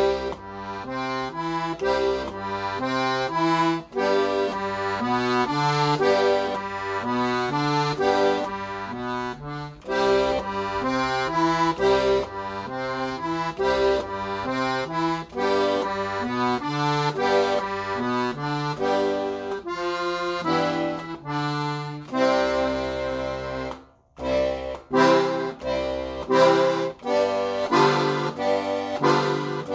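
Hohner two-row diatonic button accordion with eight bass buttons playing a lively melody over an alternating bass-and-chord accompaniment. There is a brief pause about 24 s in, after which the player returns with short, clipped chords.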